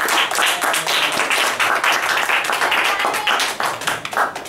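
Audience applauding: a dense patter of many hands clapping that dies away near the end.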